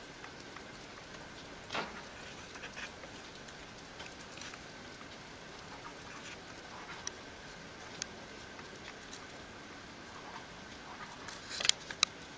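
Faint steady hiss with scattered soft clicks and taps from small possums feeding from a dish and moving about. Near the end comes a quick run of louder taps as one comes right up to the camera.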